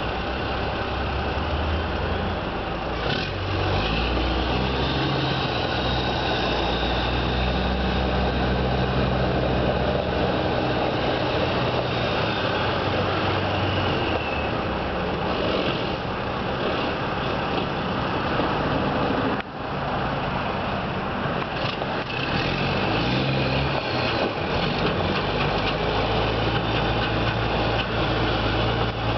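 Diesel engine of a 1986 Mack R Model dump truck running, its engine speed stepping up and down several times. Near the middle the sound briefly drops out.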